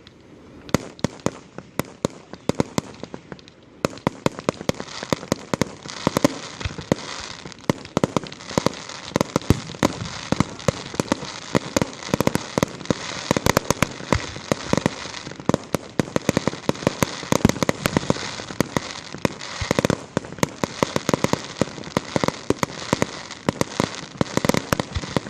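Fireworks going off in rapid succession: many sharp bangs over a continuous crackle, much denser from about four seconds in.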